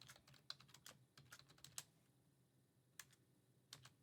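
Faint typing on a computer keyboard: a quick run of keystrokes for about two seconds, a short pause, then a few more keys.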